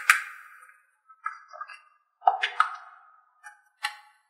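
Bright, bell-like plinking notes in short scattered groups, each ringing briefly and dying away, like a cartoon sound-effect jingle.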